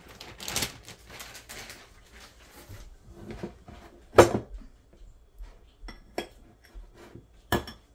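Clear plastic bag crinkling as mini marshmallows are poured from it into a glass measuring cup. This is followed by two sharp kitchen knocks, the loudest about four seconds in and another near the end.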